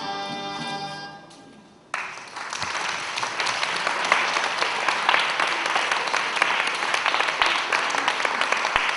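Dance music fades out in the first second or so; after a short gap, an audience starts applauding about two seconds in and keeps clapping.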